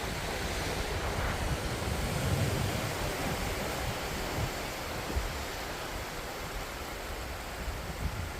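Steady wash of ocean surf on the beach, with wind buffeting the microphone as a low rumble.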